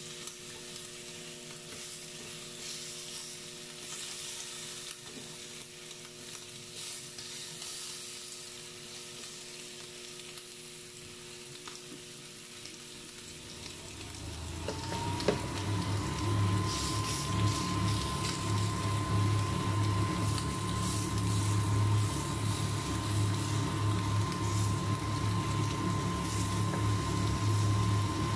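Thin pork strips sizzling on the ridged plate of an electric grill. About halfway through, a motor starts up louder over it, its whine rising and then holding steady over a low hum.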